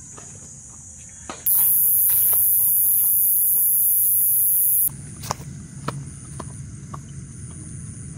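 Night insects shrill steadily. From about a second and a half in until about five seconds, a much louder, very high-pitched insect shrill drowns them out, starting and stopping abruptly. Footsteps rustle and crunch through grass and leaf litter, plainest in the second half.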